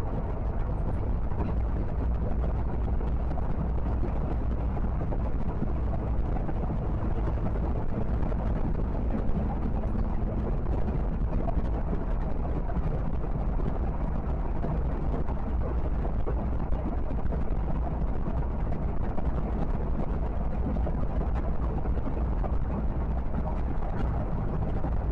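Steady low drone of a car cruising at highway speed, heard from inside the cabin: engine hum and tyre and road noise at an even level.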